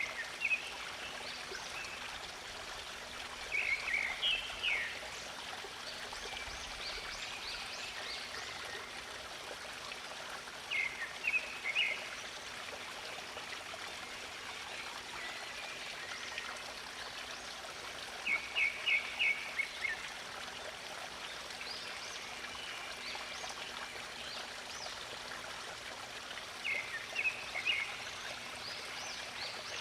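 Steady running stream water, with a bird singing short phrases of quick repeated notes about every seven to eight seconds.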